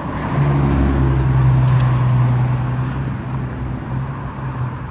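A motor vehicle going past close by. Its low engine hum and road noise swell about half a second in, then fade over the next few seconds.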